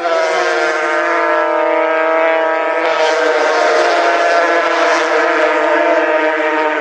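A pack of small two-stroke racing motorcycles running at high revs together: a steady, high-pitched engine whine of several bikes at once.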